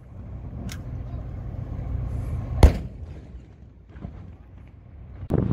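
One round of a 19-gun honour salute from the corvette HTMS Ratanakosin's gun: a single sharp report about two and a half seconds in, over a low wind rumble on the microphone.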